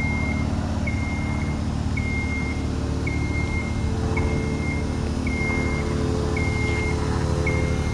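Genie GS-2668RT rough-terrain scissor lift driving slowly with its platform raised: its engine runs steadily under a motion alarm beeping about once a second.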